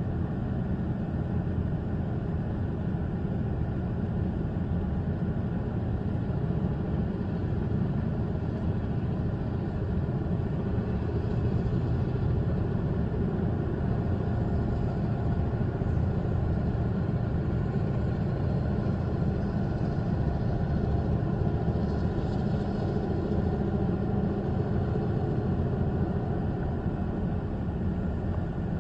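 Steady low rumble, heard from inside a stopped car's cabin, of a slow train of Alaska Railroad Difco side-dump cars rolling across a road crossing.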